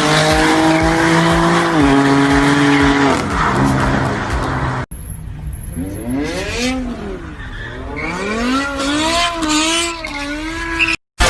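BMW M car engine held at high, steady revs, then after a cut about five seconds in, engine revs swinging up and down again and again with tyre squeal, as in a drift.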